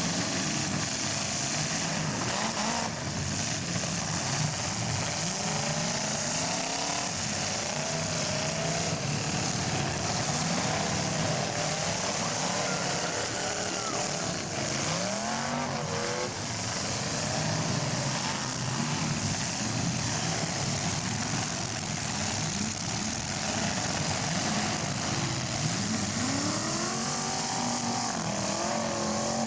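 Several big-car demolition derby engines revving up and down over a steady loud din.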